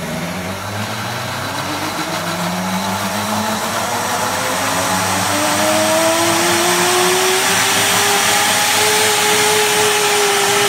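Silvercrest 2000-watt high-power blender running loud on its juice programme, blending a smoothie of frozen fruit. Its motor whine rises steadily in pitch as it speeds up, then it is switched off at the very end.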